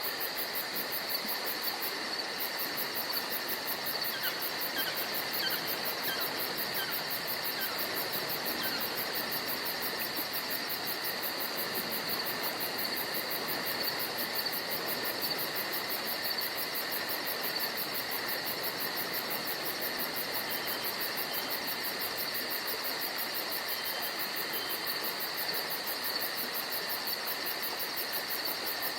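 Steady, unbroken chorus of crickets and other insects, a continuous trilling at two pitches with a very fast high pulsing over it, and a few faint short chirps a few seconds in.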